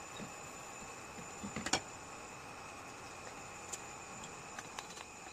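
Light clicks and taps of a spatula and brush working a chapati on a flat pan, with one sharper knock about two seconds in as a utensil is set down. A steady faint high whine runs underneath.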